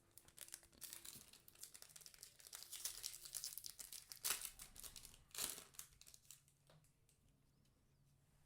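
Foil wrapper of a Yu-Gi-Oh! booster pack crinkling and tearing as it is pulled open by hand, with two louder rips about four and five and a half seconds in; the crackle dies down near the end.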